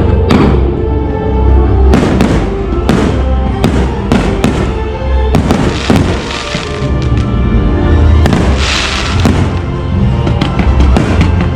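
Fireworks bursting over loud show music: a series of sharp bangs, with crackling bursts about six and nine seconds in.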